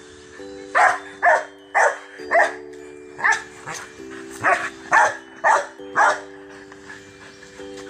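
A dog barking about ten times in quick succession, the barks coming in uneven pairs and runs over a few seconds. Steady background music chords play underneath.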